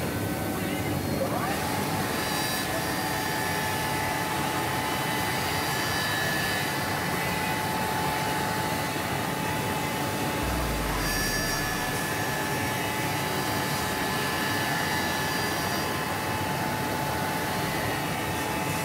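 Semac SM-TJ-1220 CNC wood lathe running, its spiral cutter head spinning beside a square wooden blank. A motor whine rises in pitch about a second in and then holds steady over the machine's steady noise, with a brief low rumble about halfway through.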